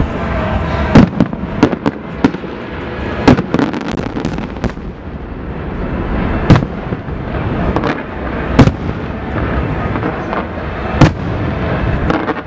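Fireworks going off: sharp bangs every second or two over a continuous rumble and crackle of more distant shells, with a quick cluster of bangs in the first few seconds.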